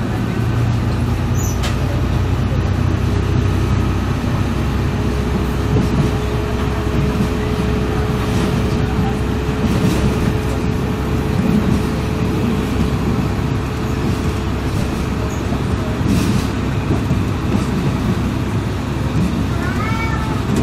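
Diesel multiple unit heard from inside the passenger coach while under way: a steady low rumble of engine and running gear, with a few sharp clicks. A steady hum sounds through the first two-thirds.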